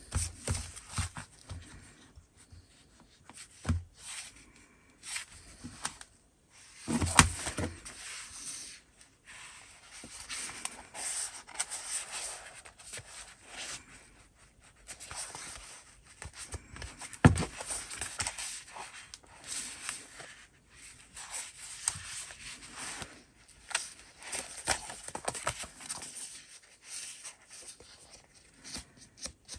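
Handling noise from a pocket Filofax with a woven nylon cover: irregular rustling, scraping and small clicks as it is turned over and opened in the hands, with two louder knocks.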